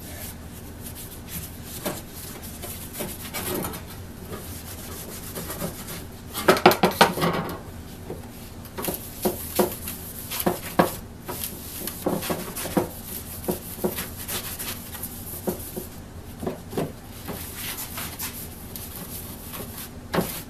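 A gloved hand rubbing paste wax onto a hand saw's steel blade: steady rubbing and light scraping over the metal, with a louder clatter about seven seconds in.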